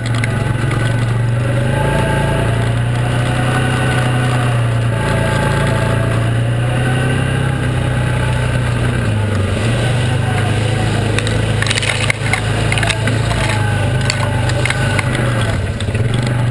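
Yamaha Viking side-by-side's engine running steadily as it drives through long grass, with tyres rolling through grass and brush. A few knocks and rattles come about twelve seconds in.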